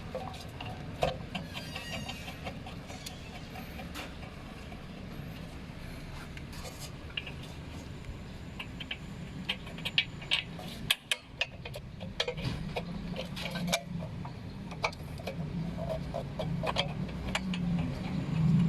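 Scattered small metal clicks and taps from a brake caliper and its 17 mm bolts being fitted by hand, over a steady low workshop hum that grows louder near the end.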